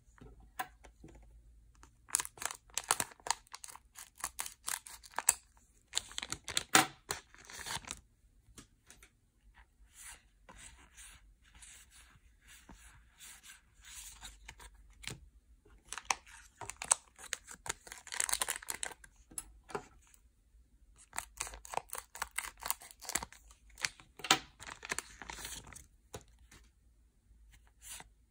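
Foil trading-card booster packs being torn open and crinkled, with the cards handled, in bursts of crackly tearing separated by short pauses.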